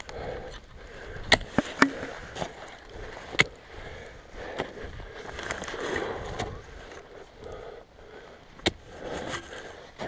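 A climber moving up a steep snow gully: several sharp clicks and knocks from an ice axe and crampons biting into hard snow and rock, with scuffing and rustling of snow, grass and clothing in between.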